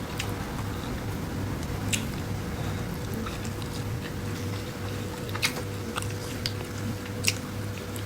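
A person chewing food close to the microphone in a steady rhythm of about two chews a second, with a few sharp mouth or utensil clicks.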